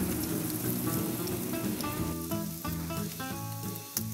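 Ribeye steaks sizzling as they sear on a hot grill grate. Background music with short, separate notes comes up over the sizzle about halfway through.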